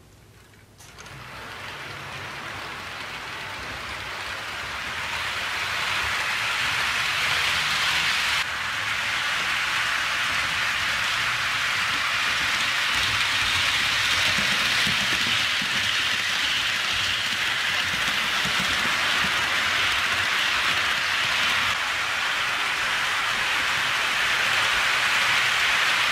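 HO scale model freight train rolling along sectional track with plastic roadbed: a steady hiss of wheels and drive that starts about a second in and grows louder over the next several seconds as the train nears, then holds steady.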